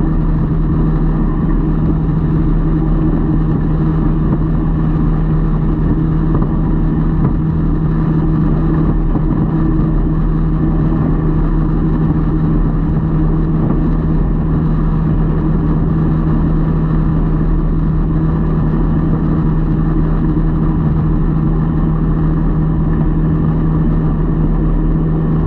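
Boat motor running with a steady, unchanging hum.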